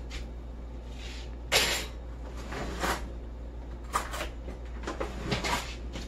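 A few short rustling and knocking kitchen handling noises, the loudest about one and a half seconds in, over a low steady hum.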